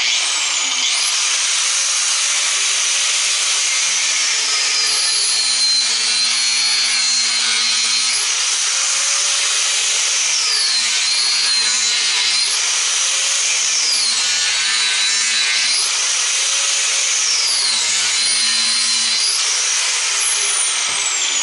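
A high-speed handheld power tool whining as it cuts through the plastic housing of a motor. Its pitch drops each time it bites into the plastic, four times, and it spins down near the end.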